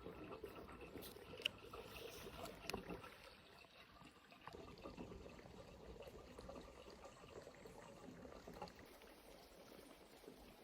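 Faint trickle of spring water, with a few light clicks in the first three seconds.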